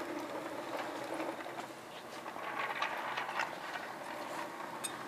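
Steady background hum of a large indoor hall, with scattered faint clicks and knocks.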